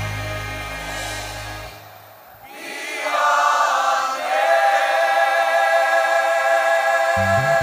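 Mixed choir singing. A low bass accompaniment drops out about two seconds in, the choir then holds sustained chords unaccompanied, and the bass comes back in near the end.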